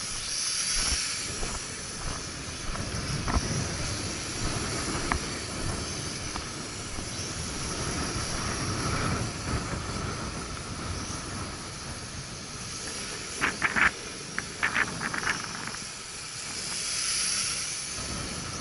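Strong gusty wind buffeting the microphone, a rumble rising and falling over a constant high hiss. A quick cluster of sharp clicks comes about three quarters of the way through.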